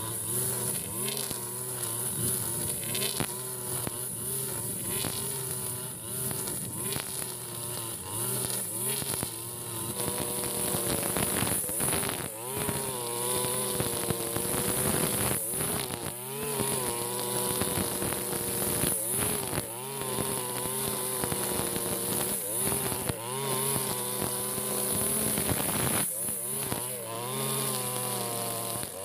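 Husqvarna 542RBS backpack brush cutter's 42cc two-stroke engine running at high revs while cutting tall, thick grass. Its pitch repeatedly sags and recovers as the cutting head bites into the grass on each swing.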